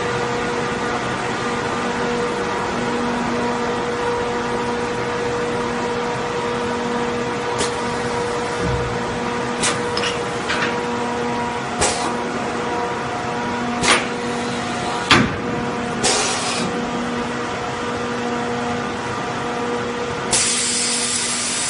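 Semi-automatic 5-gallon PET bottle blow-moulding machine running with a steady electrical hum, broken by five or six sharp metal clicks and knocks through the middle and a short hiss of air about sixteen seconds in. Near the end a loud continuous hiss of compressed air starts as the two start buttons of the blowing unit are pressed.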